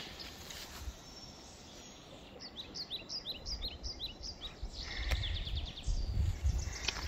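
A small bird chirping in a quick run of short, high notes from a couple of seconds in, with a few more near the end, over a low, uneven rumble of outdoor noise.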